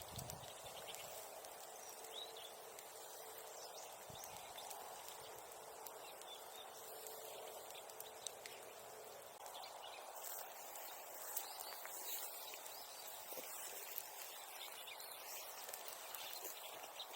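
Outdoor wood bonfire crackling, with scattered small sharp pops that come more often in the second half, over a steady background hiss.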